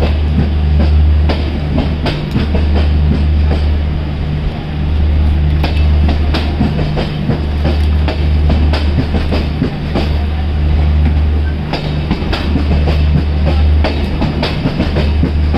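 Tejas Express passenger coaches rolling slowly past along the platform, their wheels clicking irregularly over rail joints above a low rumble that swells and fades every second or two.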